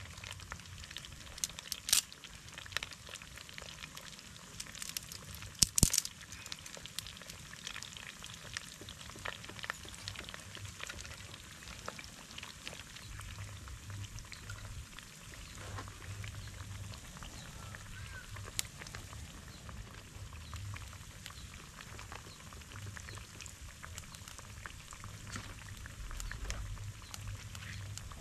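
Batter-coated potato pieces frying in hot vegetable oil: a steady sizzle full of small crackles, with a few sharper clicks in the first several seconds. A low rumble comes and goes in the second half.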